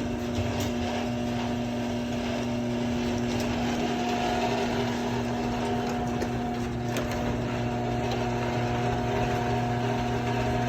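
Electric motor of a machine running with a steady hum.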